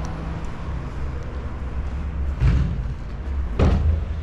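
Two loud dull thumps about a second apart over a steady low rumble.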